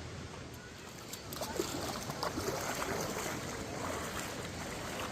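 Bear Creek's water rushing and splashing, getting louder about a second in.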